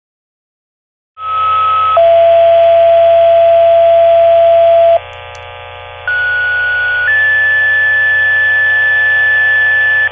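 Fire dispatch radio tone-out: two sets of two-tone sequential paging tones, each a short steady tone followed by a longer one at a different pitch, over radio hiss and hum. The first set drops from a higher to a lower tone, the second steps up to a higher one.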